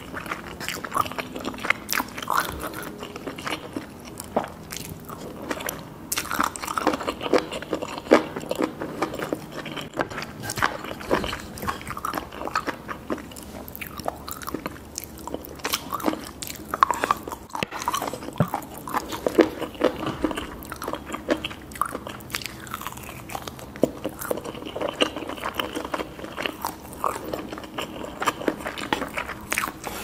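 Close-miked eating sounds: chewing and wet mouth noises while eating saucy instant noodles, with many short, irregular clicks.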